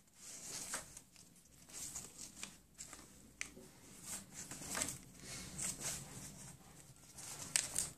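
Paper sewing pattern envelopes being flicked through one after another in a storage box: irregular papery rustles and flicks, a few sharper ones near the end.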